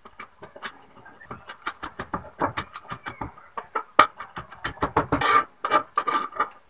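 A small kampit knife chopping and mincing garlic and onion on a chopping board: quick, irregular knife strikes, a few a second, with one sharper strike about four seconds in.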